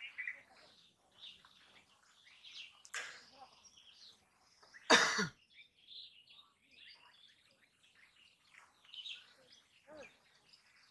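Small birds chirping faintly at intervals, with one loud, short cough from a person about five seconds in.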